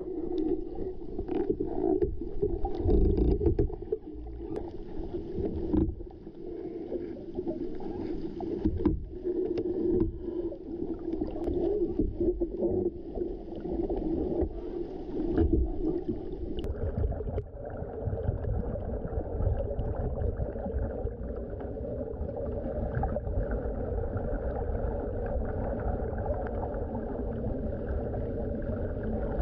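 Muffled sound of a camera submerged underwater: a steady low machine drone that shifts in pitch about two-thirds of the way through, with scattered knocks and thumps as bamboo poles are handled.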